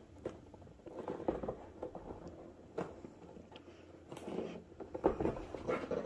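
Hands handling a snug-fitting cardboard product box, the cardboard rubbing and scraping with scattered light taps and clicks, busier in the last couple of seconds as the tight lid is worked loose.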